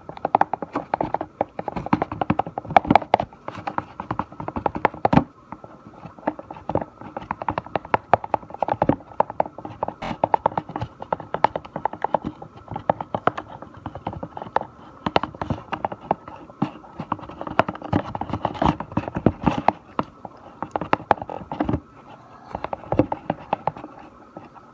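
A stick stirring a thickening glue-based slime mixture in a container: rapid, irregular clicks and knocks of the stick against the container, with sticky scraping, for a long stretch. A short pause comes about five seconds in, and another near the end.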